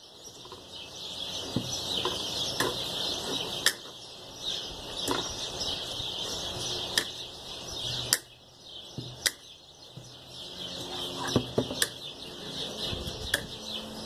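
Wire cutters snipping through the thin strands of galvanized chicken wire one at a time: about ten sharp clicks at uneven gaps of roughly a second, with the light rattle of the wire mesh between cuts.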